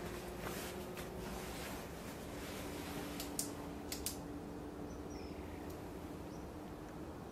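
Faint outdoor ambience with a steady low hum that drops slightly in pitch about two seconds in, about four sharp clicks a little past the middle, and a brief faint high chirp near the end.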